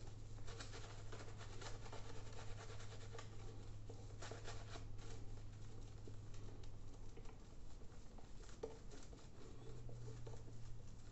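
Gillette Blue3 Sensitive three-blade disposable razor scraping through shaving lather and stubble on the cheek and neck, in short repeated strokes. A steady low hum runs underneath.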